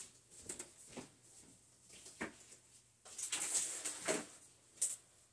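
Off-camera handling sounds as someone fetches and moves things: several light knocks and clicks, with a burst of rustling about three seconds in.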